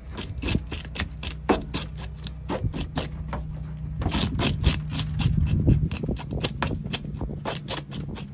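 A knife scraping the scales off a small panfish on a metal cleaning table, in quick rasping strokes about three to four a second. A steady low hum runs underneath.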